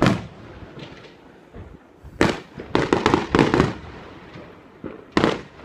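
Fireworks exploding in separate bangs: one at the start, a quick run of four or five about two to three and a half seconds in, and another near the end.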